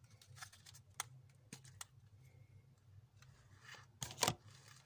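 Scattered light clicks and handling noise from things being clicked loose, loudest about four seconds in.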